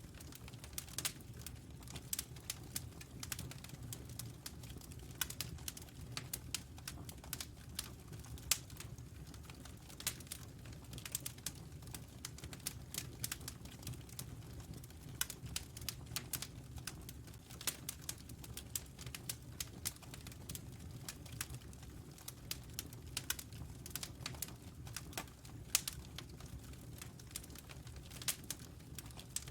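Wood fire crackling, with irregular sharp pops and snaps several times a second over a steady low rumble.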